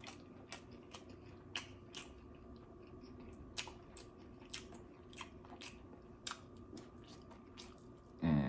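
Close-miked eating: irregular wet mouth clicks and chewing sounds as food is bitten and chewed, over a faint steady hum. A brief voiced sound comes near the end.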